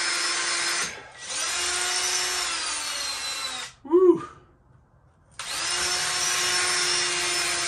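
Cordless drill running in three long bursts, drilling a pilot hole into concrete block for a Tapcon concrete screw; the motor's pitch sags near the end of the second burst. In the pause between the second and third bursts comes a short, loud vocal sound.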